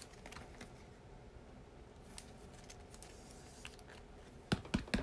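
Baseball trading cards being flipped through and handled: faint light clicks and rustles, then a quick run of sharper card snaps and clicks near the end.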